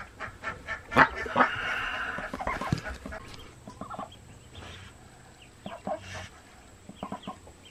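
Broody Golden 300 hybrid mother duck, defensive over her nest and ducklings, giving short low calls, with a couple of sharp clicks about a second in and a breathy noise just after.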